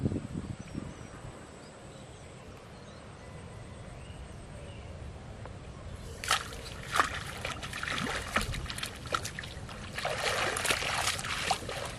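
Irregular splashing in shallow canal water, starting about six seconds in and growing busier near the end, as a hooked fish thrashes at the surface while it is drawn in on a bamboo rod.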